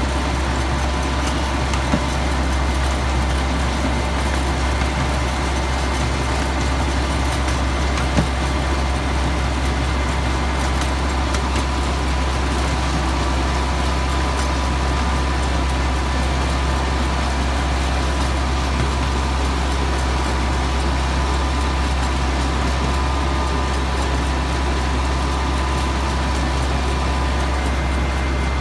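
Miniature ride-on train locomotive's engine running steadily while the train rolls along, with a steady low drone and a faint constant whine, and a couple of light clicks from the track.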